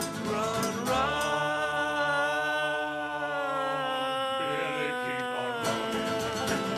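Several male voices hold one long sung chord in harmony with the instruments dropped out, in a horror-country folk band's song. Near the end the banjo, guitars and double bass come back in with their plucked rhythm.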